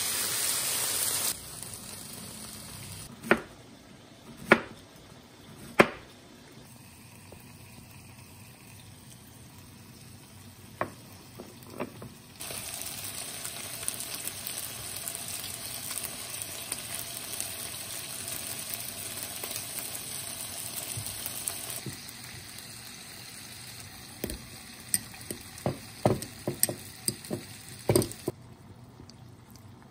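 Raw chicken pieces sizzling as they drop into a hot frying pan, followed by a few sharp knocks. Later the chicken fries with a steady sizzle, and near the end a metal utensil clicks repeatedly against a ceramic bowl as avocado is mashed.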